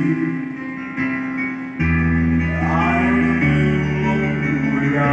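A man singing a slow karaoke song into a condenser microphone over a backing track with guitar, holding long notes. A deeper bass part comes in about two seconds in.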